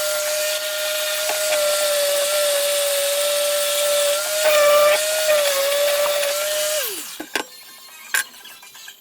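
A power tool's electric motor running steadily with a high whine. About seven seconds in it is switched off and the whine falls in pitch as it spins down, followed by a few clicks.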